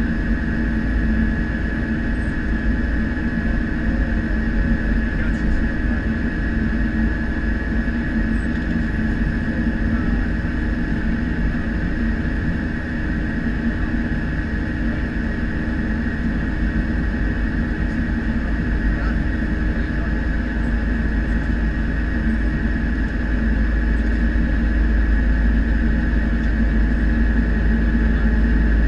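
Cessna 208B Caravan's Pratt & Whitney PT6A turboprop running at taxi power, heard inside the cockpit: a steady high turbine whine over a low propeller drone and rumble. The rumble grows a little louder near the end.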